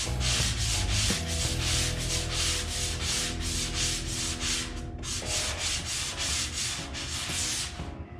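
Hand sanding of dried drywall joint compound: quick back-and-forth rasping strokes, about two to three a second, with a short pause about five seconds in, stopping near the end.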